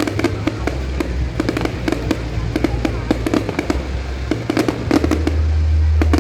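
Fireworks display going off: a rapid string of sharp bangs and crackles, several a second, over a steady low rumble.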